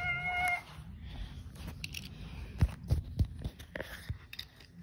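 A long held note ends about half a second in. After it come scattered soft knocks and low thumps as the camera and a toy car are handled against the carpet.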